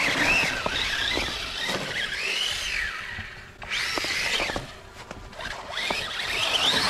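Traxxas Slash RC truck's electric motor whining as it is throttled, its pitch rising and falling in repeated sweeps several times.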